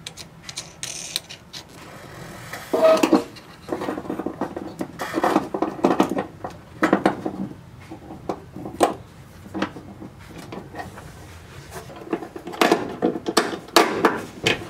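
Irregular metal clicks, taps and light scrapes from a hand nut driver and small bolt hardware as a cable bracket is fastened by hand. The clicks come in louder clusters about three seconds in, around five to seven seconds, and again near the end.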